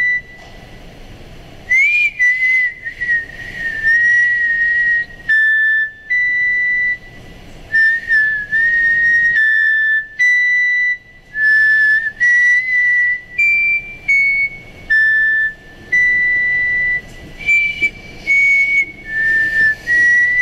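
A high whistled tune, one note at a time, held notes with small slides between them, from an animated film's soundtrack played over a room's speakers.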